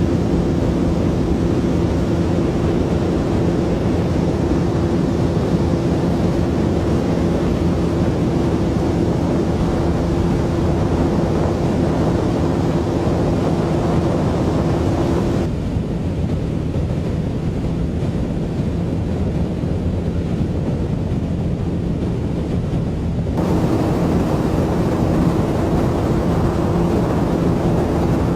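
Steady drone of a ship's engines with a low hum, mixed with wind noise on the microphone. About halfway through the sound abruptly turns duller for several seconds, then returns to the same drone.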